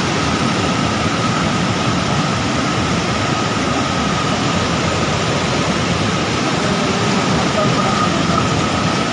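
Fast-flowing river water rushing in a loud, steady wash of noise, with a faint steady high tone running under it.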